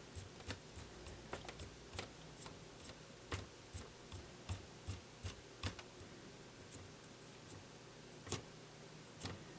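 Video head drum of a Panasonic NV-S70 S-VHS-C camcorder spun by hand, running quietly after a drop of oil on its bearing: a faint low whir with light, irregular clicks, roughly two a second, from fingers turning the drum.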